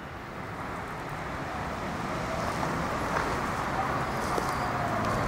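Road traffic noise: a steady rush of passing vehicles that grows gradually louder.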